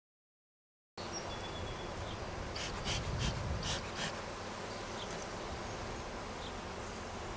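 Silent for about the first second, then honeybees buzzing steadily around an opened nuc box. About five quick puffs of a bee smoker's bellows come between about two and a half and four seconds in.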